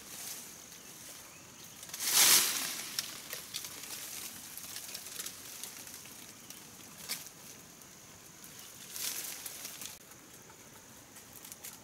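Leaves and stems rustling as plants are pulled and pushed aside in dense undergrowth. The loudest rustle comes about two seconds in, with shorter ones later.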